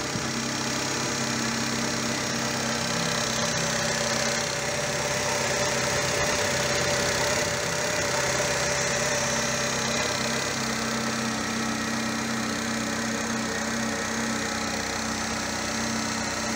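Volkswagen Polo 3 semi-injection (single-point injection) petrol engine idling steadily, freshly started.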